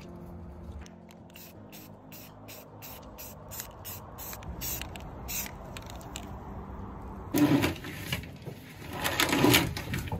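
Aerosol spray-paint can being shaken, its mixing ball rattling in quick even clicks about four a second, followed by two louder bursts of spraying near the end.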